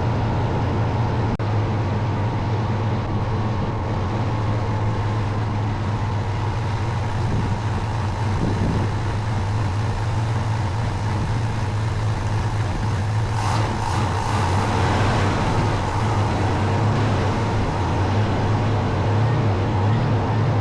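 1990 Dodge Ram 150's fuel-injected (TBI) engine running steadily at idle, just started after flooding with fuel from poorly sealed throttle-body injectors. A brief hiss rises about thirteen seconds in.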